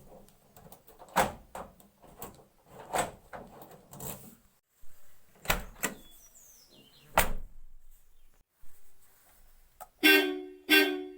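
Mahindra Bolero making a run of separate clunks and knocks, a second or two apart, then its horn sounding twice in two short honks near the end.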